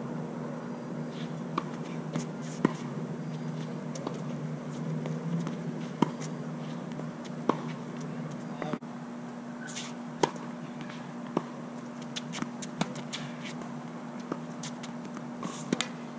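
Tennis ball hit by rackets and bouncing on a hard court during a rally: sharp pops at irregular intervals, one to three seconds apart, over a steady low hum.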